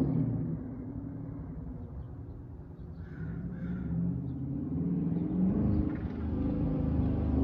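Dodge Charger Daytona's V8 exhaust through a Flowmaster Outlaw system rumbling at low speed. It drops back off throttle about half a second in, then builds again from about three seconds in as the car picks up.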